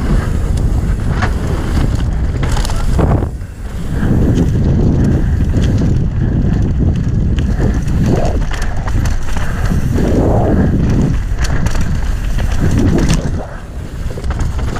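Wind buffeting the microphone of a camera on a mountain biker's helmet during a fast downhill run, over the rumble of tyres on the trail. The bike rattles and clacks in scattered sharp clicks.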